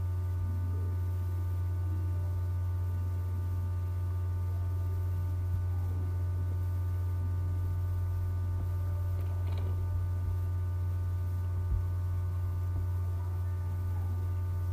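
Steady low electrical hum with fainter steady high tones above it, unchanging throughout, with a few faint clicks.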